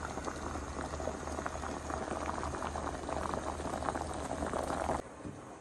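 Water with rice in it at a rolling boil in a large metal pot, a steady dense bubbling and popping. It cuts off suddenly about five seconds in.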